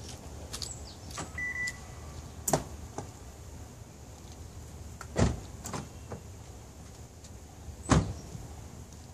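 A run of mechanical clicks and thumps from a car, with the two loudest about five and eight seconds in, and a short high beep about a second and a half in, over a low steady hum.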